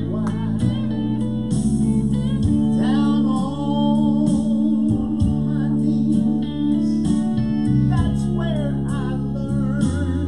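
A man singing a gospel song into a microphone over guitar accompaniment with a steady bass line.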